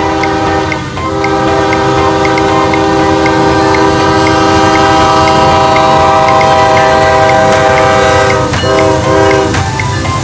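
Locomotive's multi-chime air horn sounding: a long, loud blast from about a second in, then a brief break and a shorter blast near the end. The low rumble of the passing train runs underneath.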